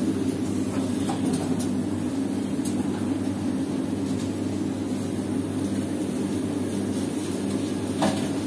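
A steady low mechanical drone, with a short click near the end.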